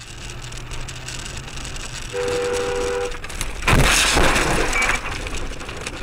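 Road and engine noise from inside a car on a snowy road; a car horn sounds for about a second, then a loud crash as the car slides sideways out of control, dying down after about a second.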